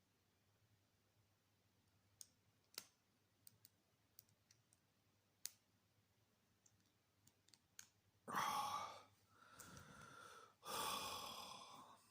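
Faint, scattered clicks of a hook pick working the serrated security pins of a padlock under tension. Near the end come two heavy sighs.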